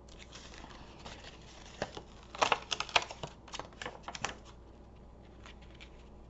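Cardstock and paper being handled on a craft table: a soft rustle, then a quick run of sharp taps and clicks in the middle as the card pieces are picked up and set down.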